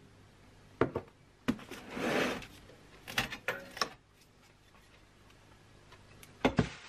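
Cardboard shipping carton being handled on a workbench: scattered knocks and taps, a short scraping rub about two seconds in, and a louder knock near the end.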